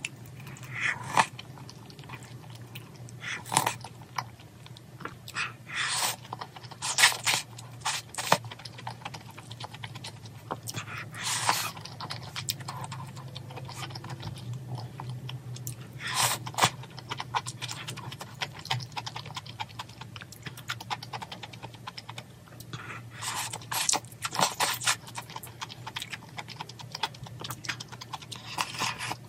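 Close-miked eating of spicy mala tang: chewing and slurping the broth and noodles, with spoon and chopsticks clicking against a small bowl. The sounds come as separate short clicks and bouts of about a second.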